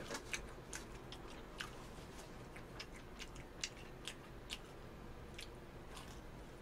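A person eating and chewing food close to the microphone: faint, with irregular small clicks and crackles scattered throughout.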